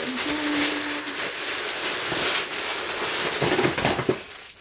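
Packaging rustling and crinkling as a wrapped item is taken out of a box and handled, with a few dull knocks a little after three seconds in.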